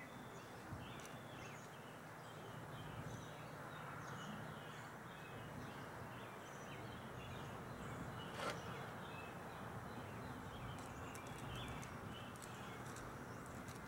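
Outdoor ambience of small birds chirping over and over, with a faint low steady hum underneath and one sharp click about eight and a half seconds in.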